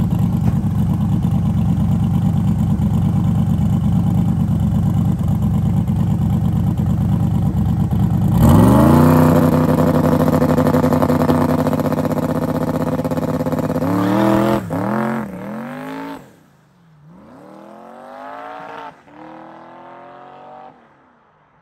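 Twin-turbo Camaro drag car's engine running with a steady, choppy rumble, then launching about eight seconds in: the revs shoot up and hold as the tyres spin on the bare road, drop and climb several times as the driver lifts and gets back into it, and fade away as the car pulls off down the road.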